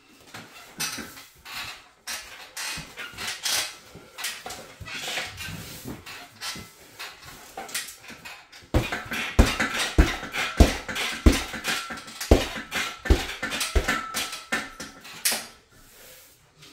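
Gloved punches landing on a heavy punching bag hung from a metal stand. First comes a quick run of lighter slaps. From about nine seconds in, heavier thuds land roughly one and a half times a second.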